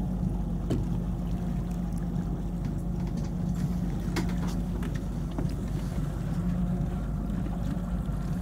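Fishing boat's motor running steadily at slow trolling speed, a low even drone heard from on board, with a few faint clicks.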